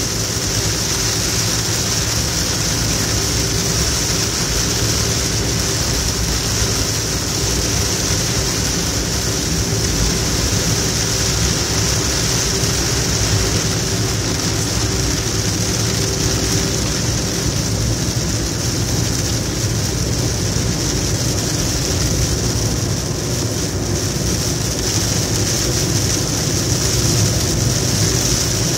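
Steady road noise inside a car cruising on a wet highway: tyres hissing on the rain-soaked pavement over the low drone of the engine. A faint steady hum fades out a little past halfway.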